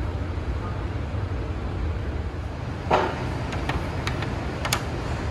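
Steady low hum of food-court ambience, with a sharp clatter about three seconds in and then a few light clinks as dishes and a small bowl are set down on a serving counter.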